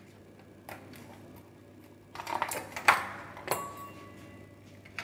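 An ice cube dropped into a stainless steel mixer-grinder jar: a few knocks and clinks, loudest two to three seconds in, with the steel jar ringing briefly after a knock.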